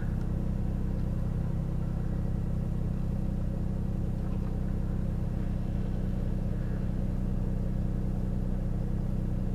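Toyota Supra Mk4's 3.0-litre straight-six engine idling steadily.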